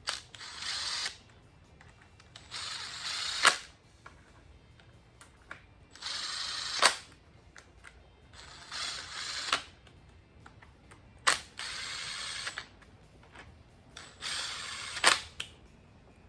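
A hand tool or small driver running bolts down in about six short bursts, each ending in a sharp click: the LS1 oil pump bolts being snugged before torquing.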